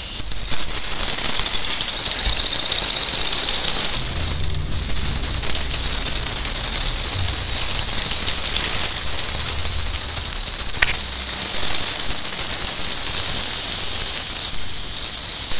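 Gas-fired gauge G (45 mm) live steam model locomotive running along its track, with a steady high hiss of steam. A low rumble joins in for several seconds in the middle.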